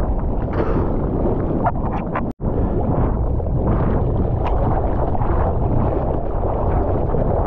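Ocean water and wind rushing over a waterproof action camera's microphone in the surf, a steady heavy wash, cut by a brief dropout to silence about two and a half seconds in.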